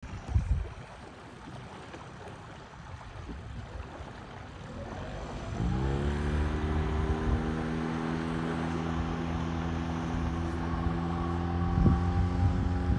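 Mercury 8 hp four-stroke outboard motor on a small inflatable boat, opened up about five seconds in: its pitch rises quickly, then holds steady at speed while it tows a tube. Before that only a low wind-and-water hiss is heard, with a thump at the very start.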